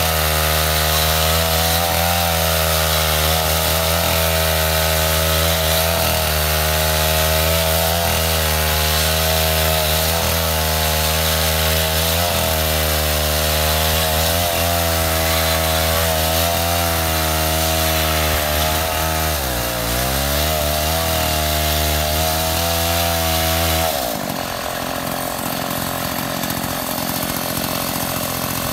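Stihl 070 two-stroke chainsaw running hard, ripping lengthwise through a coconut palm log to cut planks, its note rising and falling slightly about every two seconds. About two-thirds of the way in the engine pitch sags and recovers as it bogs in the cut. Near the end the steady note breaks into a rougher, quieter sound.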